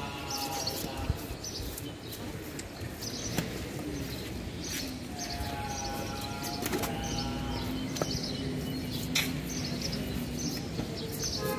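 Large knife scraping the scales off a tilapia on a wooden chopping block, with a few sharp knocks of the blade against the wood. Short high chirps repeat in the background.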